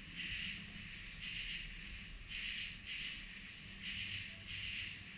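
A run of faint, high-pitched chirps repeating about every half second to a second, over a steady thin high whine and a low hum.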